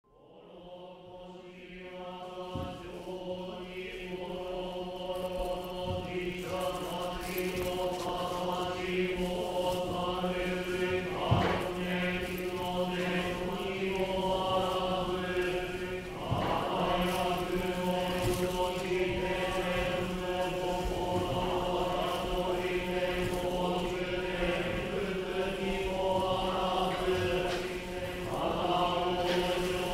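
Buddhist chanting: voices intoning a long, slow chant over a steady low drone, fading in over the first couple of seconds.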